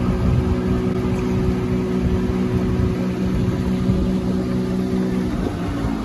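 Motorboat's engine running steadily under way, with wind and water noise; about five seconds in its note changes pitch.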